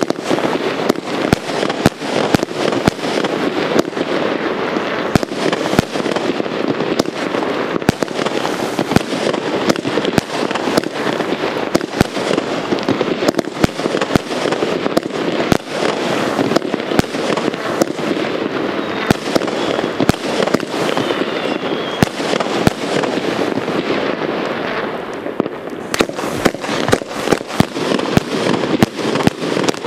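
A 100-shot (4x25) 1.2-inch fireworks cake firing: many shots in quick, irregular succession over a dense, continuous hiss and crackle. It eases briefly about 25 seconds in before the shots pick up again.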